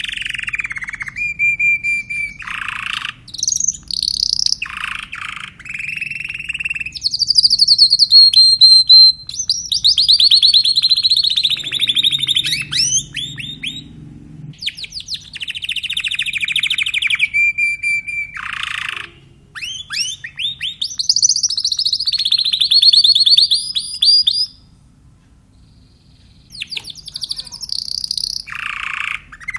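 Timbrado Español canary singing a long, loud song of fast trills and rolling phrases that rise and fall in pitch, one phrase running straight into the next, with a break of about two seconds near the end.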